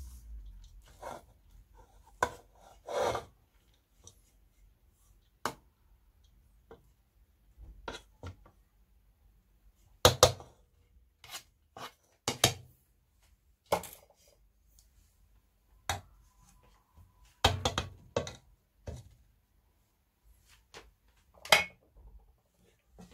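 Scattered sharp knocks and short scrapes of a metal spoon and plate against a non-stick cooking pot as half-cooked rice is tipped in and spread out.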